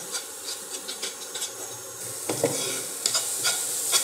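Metal spoon stirring and scraping chopped onion and tomato in a granite-coated non-stick fry pan, with short scraping clicks, while the vegetables sizzle in a little ghee; the sizzle grows louder about halfway through.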